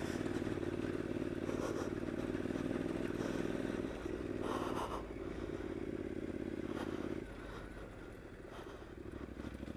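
Motorcycle engine, the Triumph Scrambler's parallel twin, running at low revs on a rough dirt lane, with a brief clatter about halfway through. About seven seconds in the throttle comes off and the engine drops to a quieter note.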